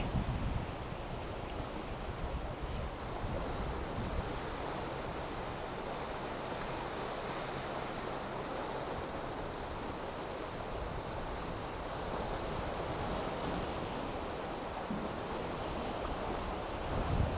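Rough sea waves surging and breaking in a strong wind, with gusts rumbling on the microphone near the start and near the end.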